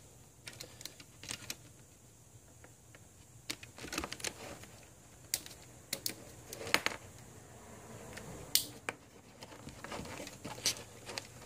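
Multimeters and their connections being handled and swapped by hand: scattered light clicks and small clatters at irregular intervals.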